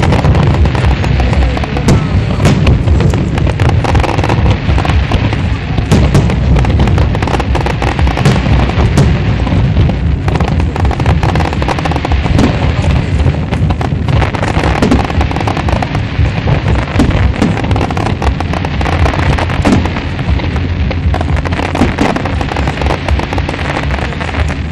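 Aerial fireworks display: shells bursting in a dense, continuous run of bangs and crackles, many in quick succession.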